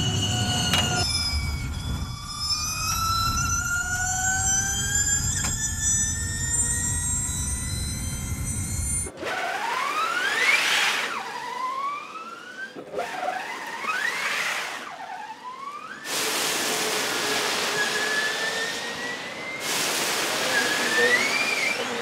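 Gen2 Formula E electric race cars under power: a high, multi-toned electric motor and transmission whine climbs steadily as the Jaguar car accelerates over a low rumble. Then the Venturi car makes several quick passes on a wet track, its whine sweeping up and falling away over a hiss of tyres on water.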